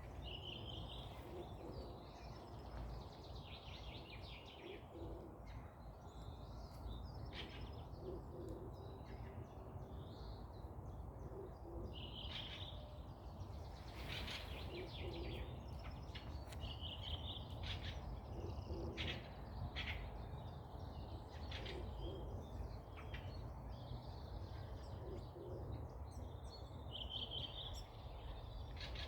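Forest birds chirping and trilling here and there, with a short low call repeating every couple of seconds, over a steady low rumble of background noise.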